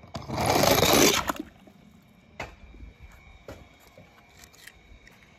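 A toy car splashing into water: one short splash lasting about a second, followed by a few faint clicks and drips.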